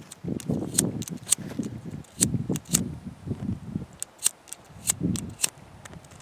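Wind buffeting the microphone in uneven gusts, with about fifteen irregular sharp clicks and snaps scattered through it.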